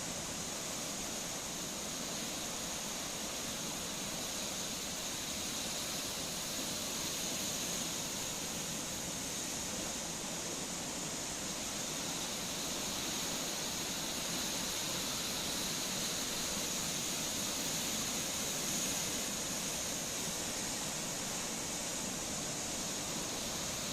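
Steady, even rushing of sea surf, a continuous hiss with no single breaking wave standing out.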